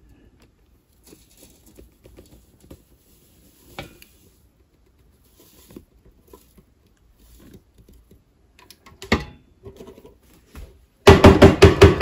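A metal mesh strainer full of cassava flour tapped sharply in a quick run of about seven knocks in a second near the end, to shake the flour through the mesh. Before that there are only faint small clicks and rustles, and one knock about nine seconds in.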